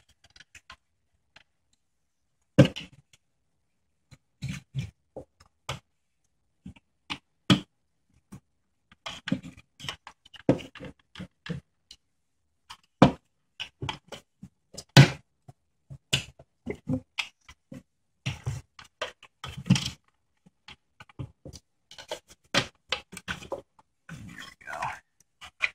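Irregular plastic clicks, snaps and knocks of a CD-ROM drive's housing being pried and worked apart by hand, with a few sharp knocks among them.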